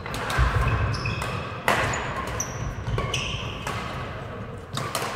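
Badminton rally: rackets striking the shuttlecock in a series of sharp smacks about once a second, with shoes squeaking briefly on the court floor between hits.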